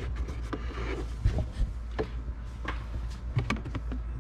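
Cabin air filter's frame rubbing and scraping against the plastic housing as it is pushed into its slot behind the glove box, with scattered sharp plastic clicks and knocks, the sharpest about a second in.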